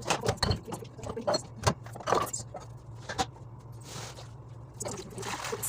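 Irregular clattering and knocking of items and shelves being handled while a refrigerator is cleaned out, with two brief swishing sounds near the end, over a steady low hum.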